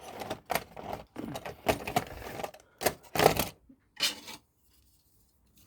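Clicks and clatter of small hard model railway pieces being handled and set down, a quick irregular run that stops about four and a half seconds in.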